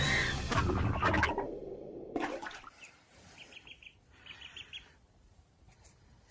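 A duckling peeping: two quick runs of short, high peeps in the second half. Before them, a loud rushing noise with knocks dies away over the first two and a half seconds.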